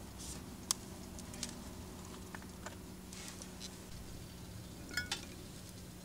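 A steady low hum under scattered faint clicks and short ticks, with a sharper double tick about five seconds in.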